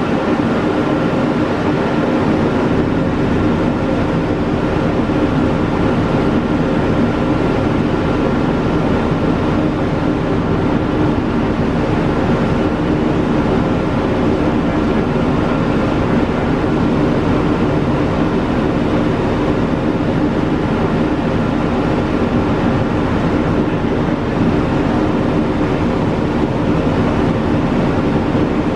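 Fire truck's diesel engine running at a constant speed: a steady, loud drone with a few unchanging tones over a rumbling noise.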